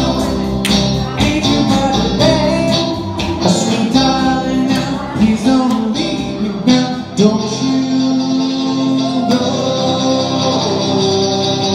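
Live band music: an electric guitar and a singer over a steady beat.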